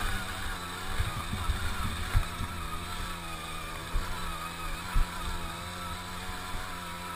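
Tomos APN 6 moped's small two-stroke engine running at a steady, fairly low speed while riding over rough ground, with knocks and thumps from the bumps, the sharpest about four and five seconds in.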